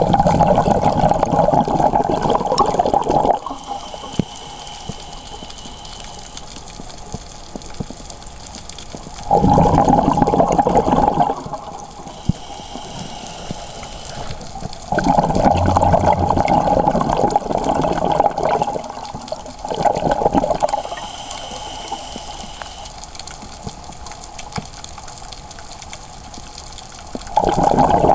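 Scuba diver breathing through a regulator underwater: loud bubbling rushes of exhaled air four times, each lasting two to five seconds. Between them a faint hissing whistle comes with each inhale.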